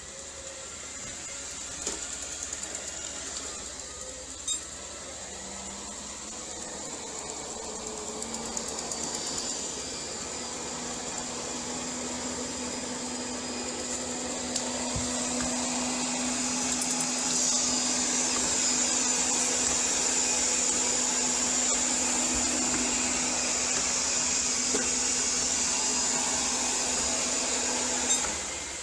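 ILIFE V10 robot vacuum running: a steady motor-and-fan hum with a high whine and a low drone, growing louder over the first half and dropping away near the end.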